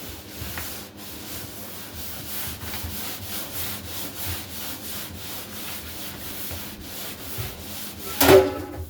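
Damp rag wiping sanding dust off dried drywall joint compound in repeated rubbing strokes. A brief louder sound comes near the end.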